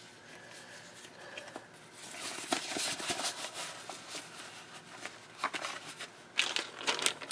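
Light handling noises: soft crinkling and a few sharp clicks as rubber-gloved hands handle a plastic freezer bag and pieces of cut squid in a stainless steel bowl. The rustling is strongest a couple of seconds in, and the clicks come near the end.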